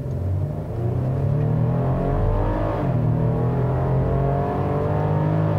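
2018 Chevrolet Colorado ZR2's 3.6-litre V6 gas engine under hard acceleration, heard from inside the cabin, with a raspy note. The pitch climbs, dips at an upshift of the eight-speed automatic about three seconds in, then climbs again.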